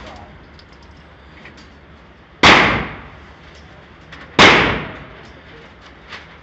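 Two pistol shots about two seconds apart, each a sharp crack with a short echoing tail off the walls of an indoor shooting range.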